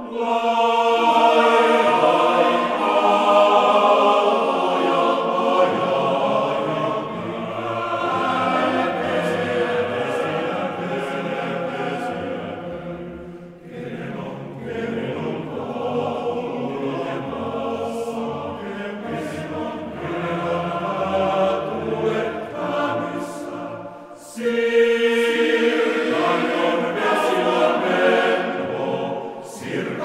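Male voice choir singing in several parts, with two brief breaks between phrases.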